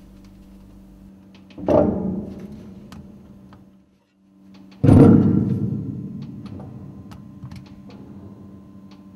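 Background music: a sustained low tone with two deep drum hits, the first a little under two seconds in and the second, louder one about five seconds in, each ringing out slowly.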